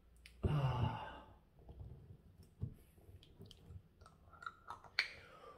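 A short vocal groan, then quiet handling of a glass hot-sauce bottle with small scattered clicks. The bottle's screw cap is twisted, giving one sharp click about five seconds in.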